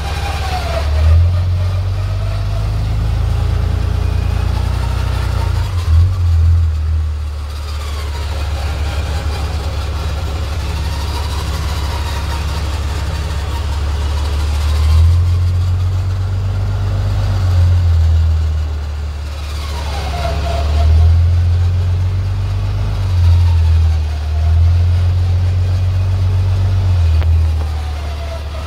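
Truck engine running with repeated swells of throttle while an electric winch winds in, its motor whine sagging and recovering under load, as the truck and an empty trailer are dragged out of soft mud.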